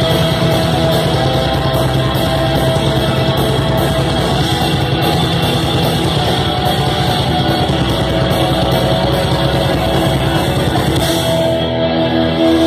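Black metal band playing live: heavily distorted electric guitars over fast, dense drumming. A little after eleven seconds the drums stop and a held guitar chord is left ringing.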